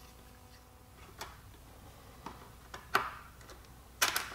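Metal clicks and taps from a small hand tool loosening the fender stay screw at the fork of a fat-tire e-bike. There are a handful of sharp, separate clicks, the loudest about three seconds in, and a quick cluster near the end.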